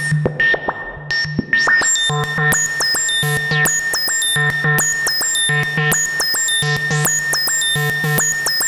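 Moog DFAM analog percussion synthesizer playing a step-sequenced pattern: low pitched drum hits with short, pitch-dropping metallic blips above them and a steady high tone held underneath. It settles into a regular repeating loop about two seconds in.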